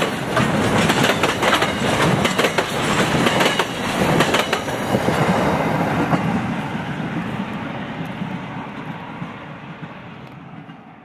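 Container freight train wagons rolling past, their wheels clattering over the rails. After the last wagon passes, about halfway through, the sound fades away steadily.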